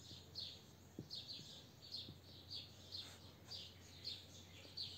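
A small bird chirping, faint short high chirps repeated about twice a second.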